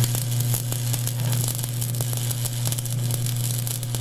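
Stick-welding arc on steel tubing, crackling steadily as the electrode burns, over a steady low hum.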